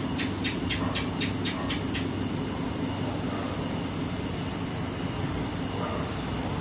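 A steady low hum with a hiss over it, with a quick run of sharp ticks, about four a second, that stops about two seconds in.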